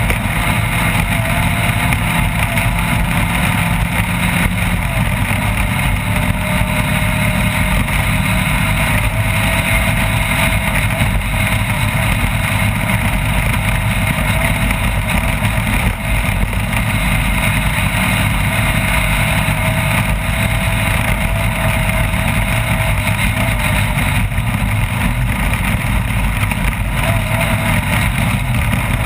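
Off-road race vehicle running steadily at speed: engine and driving noise, loud and unbroken.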